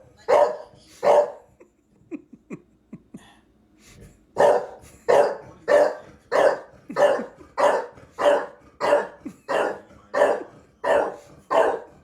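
A dog barking: two barks, a pause of about two seconds with a few faint short sounds, then steady repeated barking at about one and a half barks a second.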